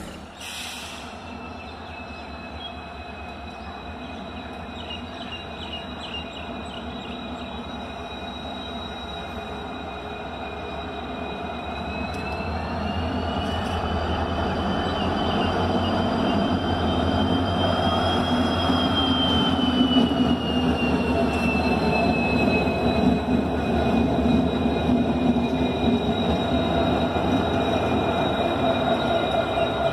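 WDP4 diesel locomotive running light, its EMD two-stroke V16 engine growing steadily louder as it approaches. A steady high wheel squeal runs over it, rising in pitch about halfway through and then falling back.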